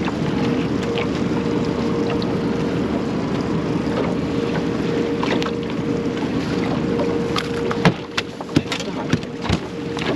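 A small fishing boat's motor runs steadily with a constant whine, then cuts off abruptly about eight seconds in. A few sharp clicks and knocks follow.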